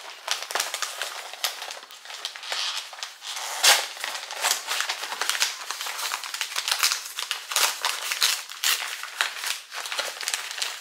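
Paper wrapping crinkling and tearing as a package is unwrapped by hand, with one louder crackle about four seconds in.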